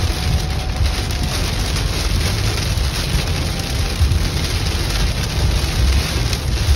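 Heavy rain beating on a moving car's windshield and roof, mixed with tyre noise on the flooded road, heard inside the cabin. It is a steady, loud rush with a low rumble underneath.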